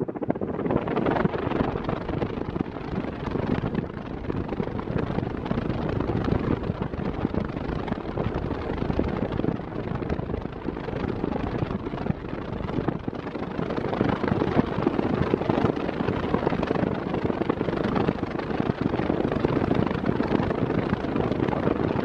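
Arno Silence Force VD40 40 cm fan running at its maximum speed, its airflow blowing across the microphone as a steady, gusty rush of wind noise that cuts in suddenly at the start.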